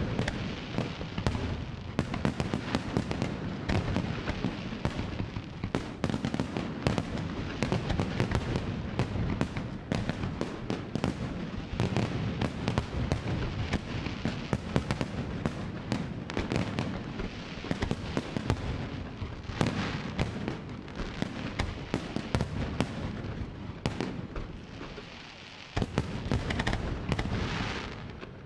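Aerial fireworks display: many bangs and crackles going off in quick succession, overlapping into a continuous rumble, with a short lull near the end before it picks up again.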